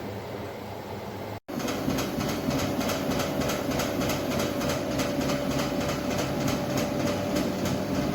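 Washing machine running: a steady mechanical hum with a faint rhythmic clatter, which breaks off briefly about a second and a half in and comes back louder.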